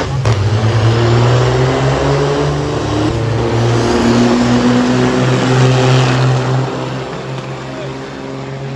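Two heavy diesel semi-truck engines at full throttle as the lumber-loaded rigs race side by side from a standing start, their pitch climbing slowly under the heavy load. The sound falls away after about six and a half seconds as the trucks pull off.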